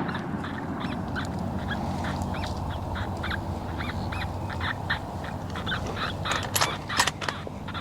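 FoxPro X24 electronic predator call playing field mouse distress: rapid, irregular high squeaks repeating throughout, with a few sharp clicks near the end.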